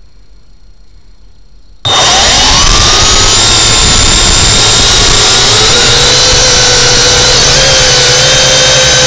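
Quadcopter drone's propeller motors starting about two seconds in, their whine gliding up in pitch, then running steady and loud as the drone lifts off.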